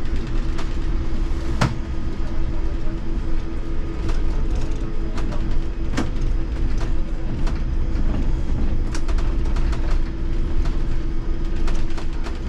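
Cab of an IMC Hess Lightram 19 DC trolleybus on the move: a steady low rumble and hum, with scattered sharp clicks and knocks. The two loudest come about one and a half seconds in and about halfway.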